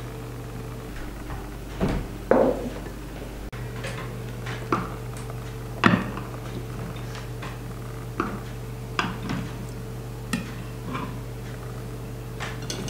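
Scattered knocks and clinks of dishes and cutlery, about a dozen separate strikes, over a steady low hum.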